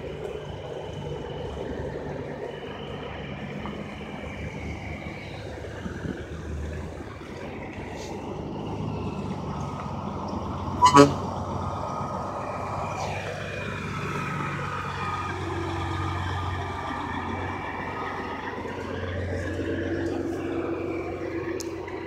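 Traffic running past, then a semi truck gives one short, loud horn toot about halfway through. Its diesel engine then pulls past, the engine note dipping and then climbing again.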